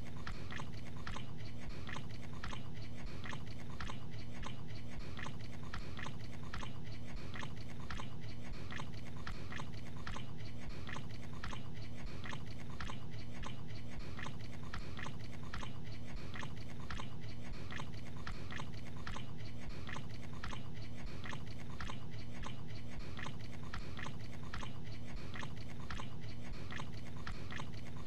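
A man chewing food noisily with his mouth, gabagool (cured capicola), in an even, unbroken rhythm of about three chews a second.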